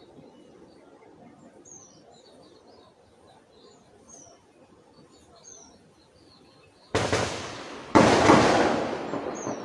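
Birds chirping faintly in the bush, then about seven seconds in two sudden loud reports of weapons fire about a second apart, the second the louder, each trailing off in a long rolling echo.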